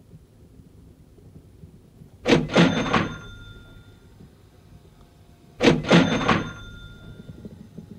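Cash register 'ka-ching' sound effect, played twice about three and a half seconds apart: each a quick mechanical clatter followed by a ringing bell tone that fades over about a second.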